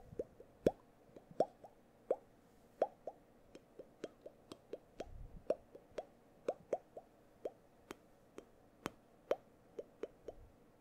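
Mouth clicks and pops made right at a microphone: a string of short tongue clicks and lip pops, each with a brief ringing pitch, about two to three a second in an uneven rhythm.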